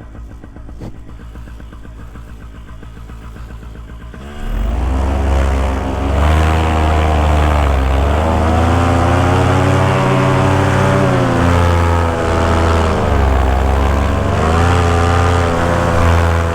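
Vittorazi Moster 185 single-cylinder two-stroke paramotor engine and propeller running at low revs, then throttled up sharply about four seconds in to high power, its pitch rising and falling with the throttle.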